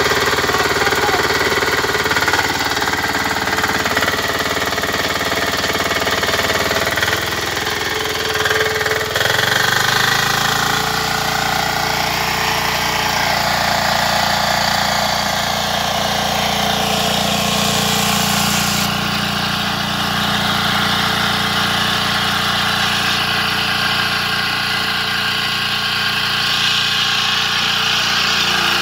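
Mini power tiller's engine running steadily as the tiller churns soil between sugarcane rows. The engine note changes about nine seconds in.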